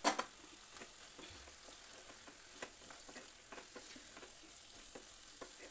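Chicken pieces frying in oil in a non-stick pan with a faint sizzle, while a wooden spoon stirs in ground spices with scattered light taps and scrapes. A couple of sharper knocks of the spoon come at the very start.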